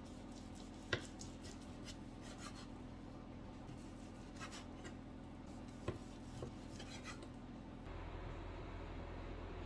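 A large chef's knife sawing back and forth through a cooked beef joint on a wooden cutting board: faint rasping strokes, with two sharper clicks of the blade, one about a second in and one just before six seconds.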